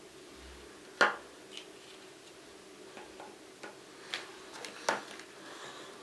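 Sharp little plastic clicks and taps of Kinder Surprise toy pieces being handled. The loudest click comes about a second in, another comes near the end, and a few fainter ticks fall between them.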